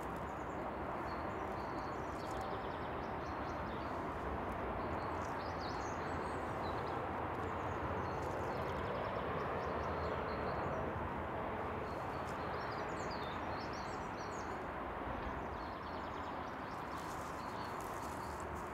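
Steady rumble of an approaching SBB Cargo International Siemens Vectron electric locomotive, with birds chirping over it. A short run of clicks comes near the end.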